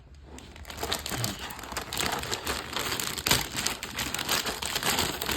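Plastic packaging crinkling and crackling in a continuous, busy stream as model-kit parts are unwrapped by hand.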